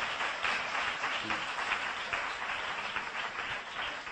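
Audience applauding, thinning and fading out near the end.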